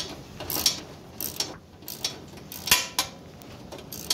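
Socket ratchet wrench clicking in short, uneven runs as it is worked back and forth to loosen a bolt on a tractor body.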